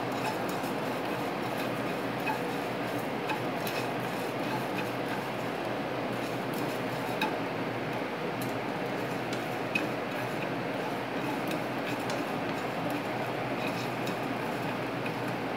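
Cumin and coriander seeds dry-roasting with salt in a nonstick pan on a gas stove, stirred with a spatula: scattered light ticks and scrapes over a steady hiss.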